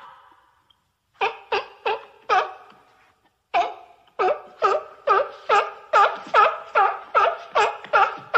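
Sea lion barking: a quick run of four barks, a short pause, then a steady string of about a dozen barks, roughly two a second.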